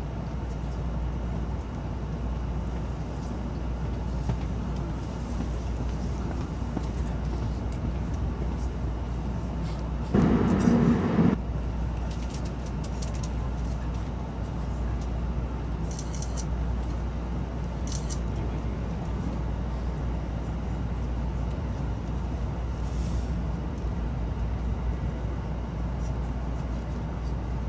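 Shinkansen running at speed, heard inside the passenger cabin: a steady low rumble with a rushing noise over it. About ten seconds in, a louder rushing burst lasts a second and a half before the steady running noise returns.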